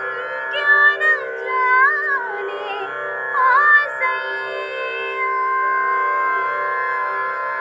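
A woman singing a slow, ornamented melody over a sustained instrumental backing track. Her voice drops out about four seconds in, and the backing music carries on with long held chords.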